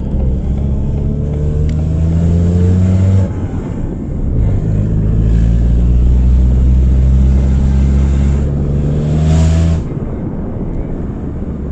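Car engine revved and held twice through an exhaust with a broken flexi joint, each rev a loud drone climbing slowly in pitch. The second, longer rev ends near the end and the engine drops back to idle.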